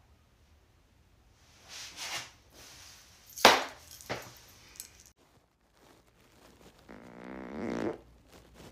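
Two sharp slaps of a hand on a denim-covered backside, the first the loudest, about three and a half seconds in. Near the end comes a buzzing fart lasting about a second, its pitch wavering.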